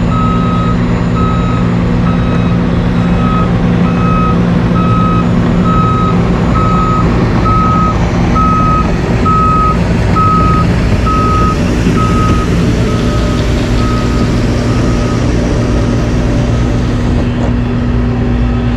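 A backup alarm beeping about once a second, swelling louder toward the middle and fading out near the end. Under it, the steady running of heavy diesel engines from the dump truck and asphalt paver.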